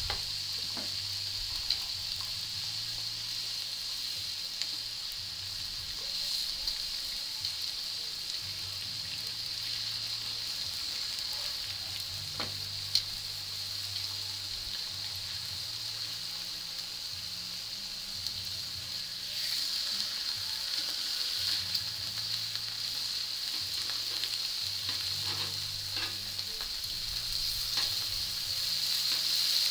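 Bacon and raw beef burger patties sizzling on a hot round flat-top griddle, with sharp clicks of metal tongs as patties are laid down. The sizzle grows louder about two-thirds of the way through as more patties hit the griddle.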